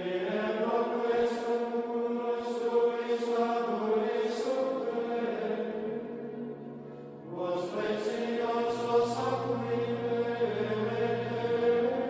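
Background music of chant-like singing over a sustained low drone, in two long phrases, the second beginning about seven seconds in.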